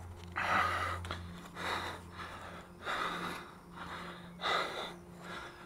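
A man breathing hard, with about five heavy, gasping breaths roughly a second apart. He is out of breath from the exertion of climbing down a tall chimney's ladder.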